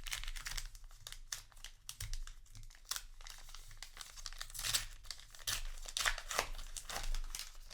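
Foil booster pack wrapper crinkling and tearing as a trading card pack is handled and opened, with irregular crackling throughout.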